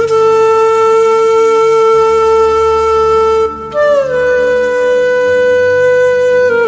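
Background music: a wind instrument holding long sustained notes over a low, soft accompaniment. The melody moves up to a new held note about halfway through and starts to bend down right at the end.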